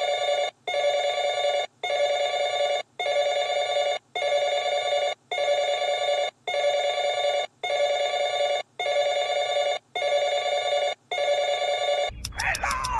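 An electronic buzzer tone beeping over and over in long pulses, a bit under one per second, each broken by a short gap. About twelve seconds in it stops and gliding chirps over a low hum take over.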